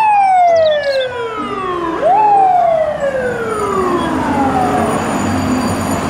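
Fire truck siren wailing: the pitch falls slowly, jumps back up about two seconds in, and falls slowly again, with street noise underneath.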